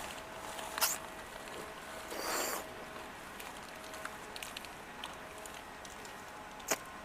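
Close-up chewing of sweet candy: a sharp click about a second in, a longer half-second squelchy burst around two seconds, scattered small clicks in the middle, and another sharp click near the end.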